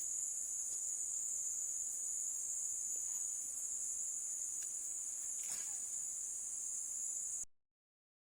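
Insects chirring steadily in one unbroken high-pitched band, which cuts off suddenly near the end.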